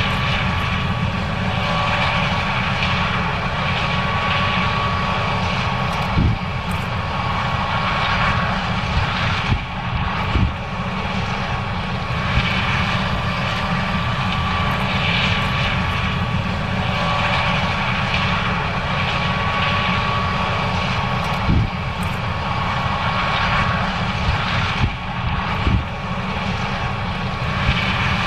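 John Deere S670 combine running steadily while harvesting corn: a constant machine drone with a steady high whine, and a few brief knocks.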